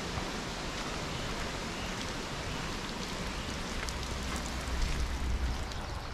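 Steady, even rush of running water from a forest creek with a small waterfall. A low rumble swells about four seconds in.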